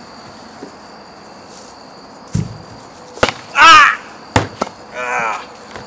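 Backyard wrestling bout: a thud and sharp slaps of bodies hitting padded mats, with a loud yell from a wrestler between them and a shorter cry near the end. Crickets chirp steadily behind.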